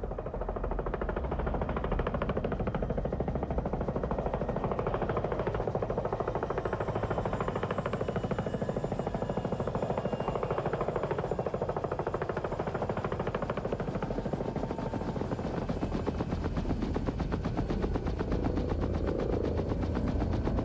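Helicopter running, its rotor blades beating in a fast, steady chop.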